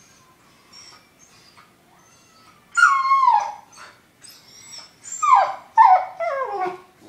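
A timid dog whining and crying, afraid of a bone it is offered: faint high whines at first, then a loud whine that falls in pitch about three seconds in, and a run of several falling whines near the end.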